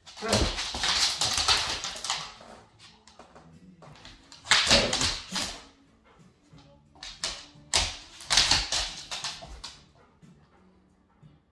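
Dogs scuffling on a laminate floor: three rough, noisy bursts of a second or two each, with claws clicking on the floor in between.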